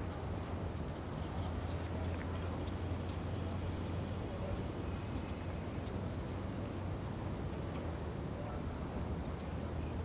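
Outdoor ambience: a steady low drone, heavier in the first few seconds, with faint, short high chirps from small birds scattered throughout.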